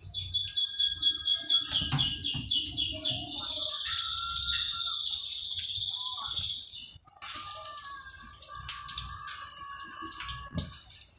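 A small bird singing: a fast high trill, then held whistled notes. The song breaks off suddenly about seven seconds in and goes on with lower held notes.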